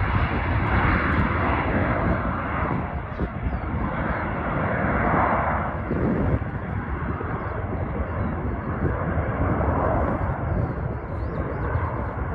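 Dassault Falcon 2000EX business jet's twin turbofans: a steady, noisy rumble easing slowly away as the jet climbs out after takeoff.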